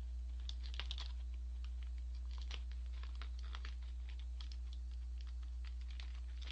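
Small plastic food cutter clicking and tapping against a plastic takeout tray as tteokbokki rice cakes are cut into pieces: a run of irregular light clicks, several a second, over a steady low hum.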